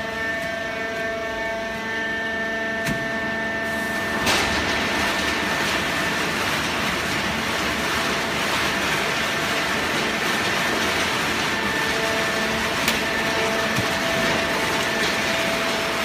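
Fully automatic horizontal hydraulic baler running, with a steady hum of several tones from its power unit. About four seconds in, a louder, steady rushing noise sets in and carries on.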